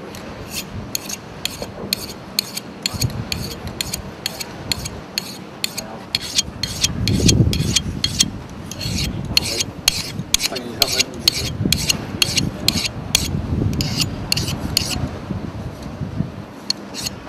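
A knife blade being sharpened by hand, a small sharpener stroked along the steel in quick rasping strokes, about three a second, with a short pause near the end.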